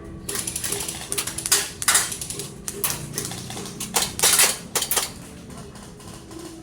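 Airsoft gun firing in rapid bursts, a fast rattle of shots, loudest about a second and a half in and again around four seconds in.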